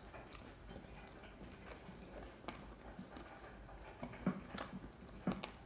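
Close-up eating sounds: soft chewing and small wet mouth clicks while breaded fried chicken wings are torn apart by hand, with a few sharper clicks near the end.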